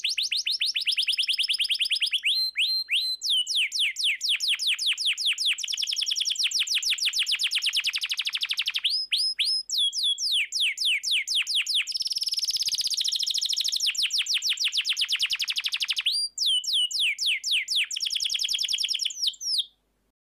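Domestic canary singing: fast rolling trills of rapidly repeated high notes in a string of changing phrases, with a held whistled passage around the middle. The song cuts off abruptly just before the end.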